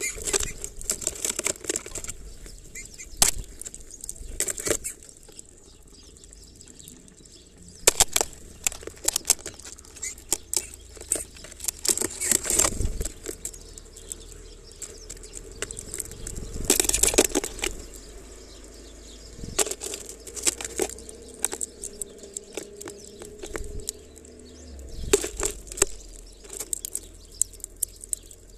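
Small birds at a plastic-bottle feeder: wings flapping as they land and take off, with irregular bursts of sharp clicks and rattles from sunflower seeds and claws on the plastic every few seconds.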